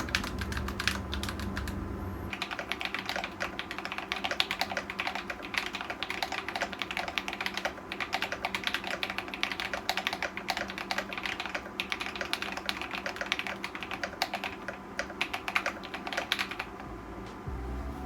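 Continuous fast typing on a Tecware Veil 87 tenkeyless mechanical keyboard with Akko Cream Blue v3 tactile switches: a dense run of key clacks, several a second.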